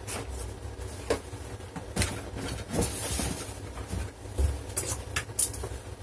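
Scattered light clicks and taps of small objects being handled on a workbench, about seven in all, over a steady low hum.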